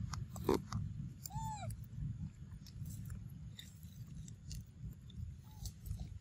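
Monkey chewing peanuts, with scattered crunching clicks over a steady low rumble. About a second and a half in there is one short, high, pitched call that rises and then falls.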